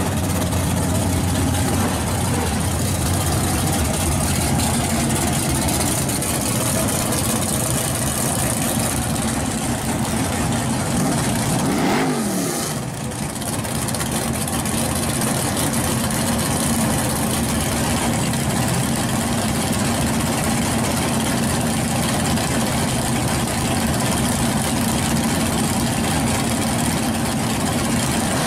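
Drag cars' V8 engines running loud. Through the first part a Chevrolet Monte Carlo SS rumbles as it rolls out of its burnout smoke. After a brief break about twelve seconds in, a car idles with a steady, even drone at the starting line.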